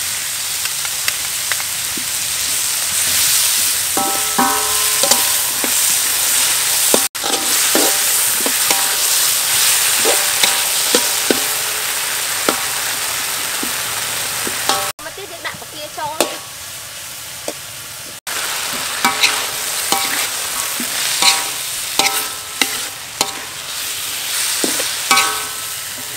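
Vegetables and sauce sizzling in a hot steel wok while a metal spoon stirs and scrapes them, with frequent clinks and a few short metallic rings of spoon on wok. The sizzle drops quieter for a few seconds in the middle.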